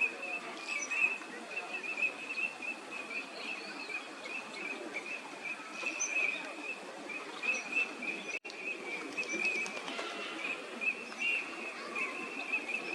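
A flock of Eurasian teal calling: many short, high whistled notes overlapping in a constant chatter. The sound cuts out for an instant a little past the middle.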